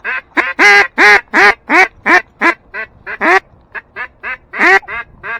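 Mallard duck call blown in a run of loud, nasal hen-mallard quacks, about three a second, some louder than others, calling to ducks coming in.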